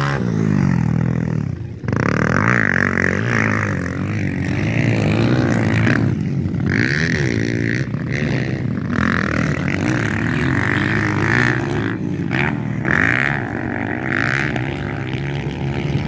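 Motocross dirt bike engines revving hard and easing off over and over as the bikes ride the track, the pitch rising and falling with each burst of throttle.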